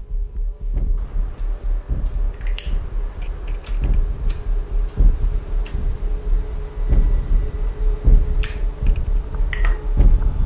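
A metal lighter clicked and clinked several times as it is opened and struck to light a cigarette, over a loud, uneven low rumble.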